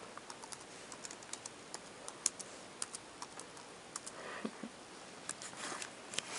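Typing on a laptop keyboard: short, irregular key clicks, a few a second, with brief pauses between runs.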